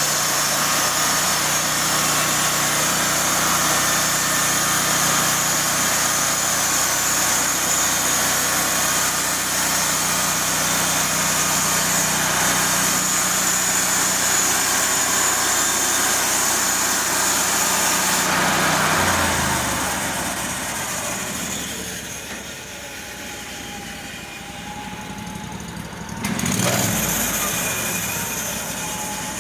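Gasoline engine of a MechMaxx SM36 sawmill running steadily at high speed. About two-thirds of the way through its pitch slides down and it turns quieter, as if throttled back. Near the end there is a brief, louder surge.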